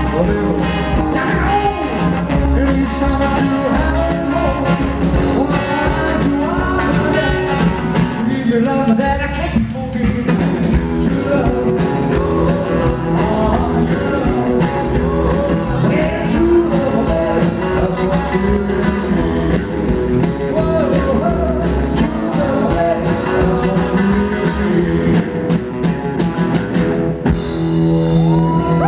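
Live rock and roll band playing: upright double bass, acoustic guitar and hollow-body electric guitar, with a male voice singing. Near the end the playing settles onto a sustained final chord.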